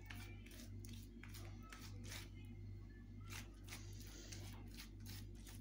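Faint rustling and soft smearing strokes of hands spreading a wet gram-flour paste over a colocasia leaf, over a steady low hum.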